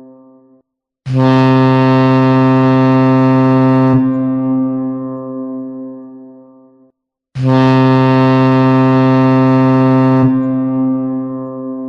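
Boat horn sounding two long, steady, low blasts, each held about three seconds and then dying away over a few more. The tail of an earlier blast fades out at the start.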